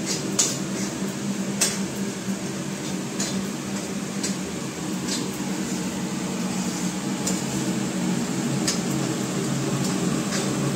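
Hindware kitchen chimney hood's blower running at its second speed, a steady hum. Over it, a steel spatula scrapes and clicks against an aluminium kadai of roasting semolina every second or so.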